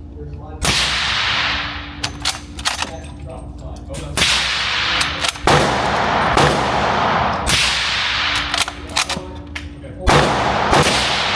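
About four suppressed rifle shots through a Q Black Thunder Chicken suppressor, slowly spaced, each with a long ringing decay off the range walls. Thinner, sharp cracks from other shooters come in between, over a steady ventilation-like hum.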